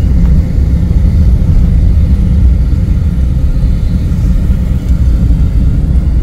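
Loud, steady low rumble of a moving car, with road and wind noise.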